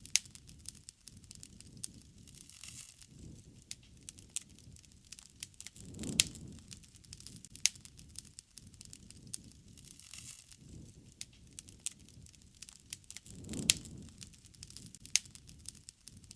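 Campfire burning, with wood crackling and popping in irregular sharp snaps over a low rumble. Stronger low swells of flame come about six seconds in and again about thirteen and a half seconds in.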